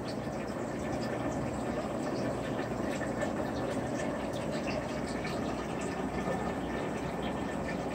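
Steady bubbling and trickling of aquarium water from an air-driven sponge filter, with small scattered pops over a low steady hum.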